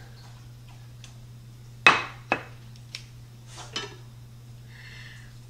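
Kitchenware being handled: a ceramic plate set down on a wooden cutting board and metal kitchen tongs moved to the pan of chili, giving two sharp knocks about half a second apart near the middle, then a smaller click and a few faint clinks, over a low steady hum.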